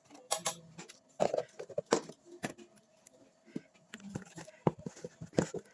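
Irregular knocks and clatter of kitchen utensils and dishes being handled during food preparation, with sharp hits coming in uneven clusters.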